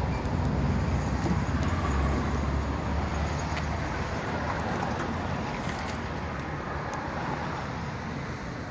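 Steady low idle rumble of the Toyota Aristo's 2JZ-GTE twin-turbo inline-six through its FGK exhaust, growing gradually fainter over the second half.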